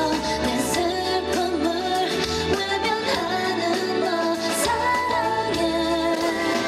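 A woman singing a K-pop song live into a microphone with band accompaniment, her voice holding long notes with vibrato.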